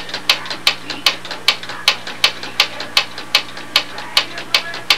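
Cassette deck's record lever and its switch mechanism clicking nearly three times a second as the lever is worked up and down with stop held, spreading freshly sprayed cleaner through a record/playback switch that the owner found clogged with dust. A steady low hum runs underneath.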